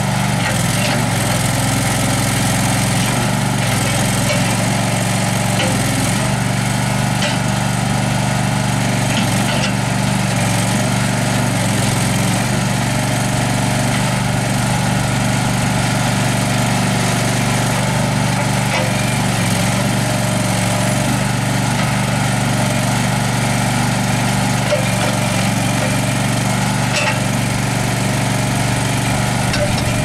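Engine of a Terramite T7 compact tractor-loader-backhoe running steadily while the backhoe boom and bucket are worked.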